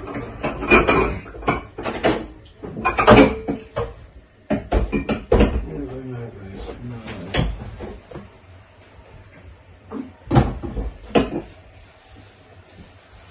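Kitchenware being handled: a run of clinks and knocks from dishes, pots and cutlery, busiest in the first few seconds and again about ten seconds in.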